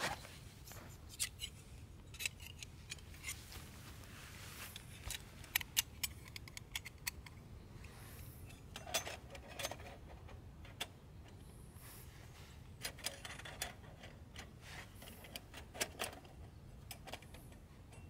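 Knife work: irregular sharp clicks and short scrapes, with a few louder clicks bunched around the middle and again near the end.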